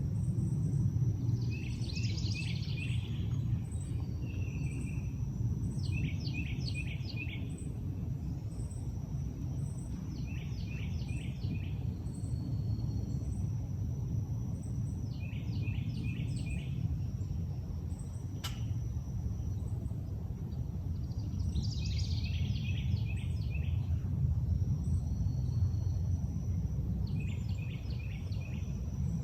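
A songbird sings a short phrase of four or five quick repeated notes, about every five seconds, over a steady low rumble and a faint, rapid high ticking.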